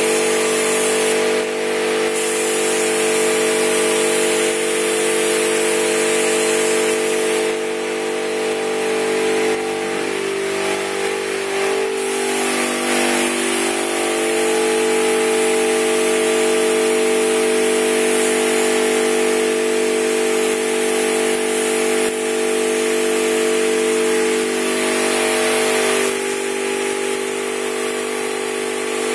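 Compressed air hissing from a gravity-feed paint spray gun laying clearcoat, the hiss growing and easing as the trigger is worked. Under it runs a steady machine hum made of several tones, whose pitch shifts for a few seconds in the middle.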